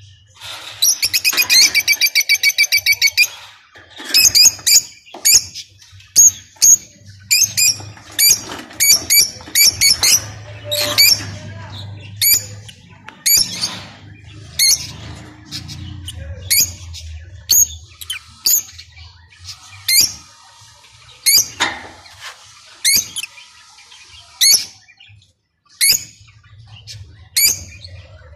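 Lovebirds chirping and squawking: a fast run of about twenty sharp, high chirps in the first few seconds, then single shrill chirps every second or so.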